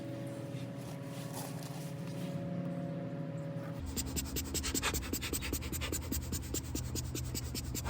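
Adhesive liner being peeled off an iPad's screen adhesive, making a rapid, even run of crackling ticks, about seven a second, that starts about four seconds in, over a faint steady hum.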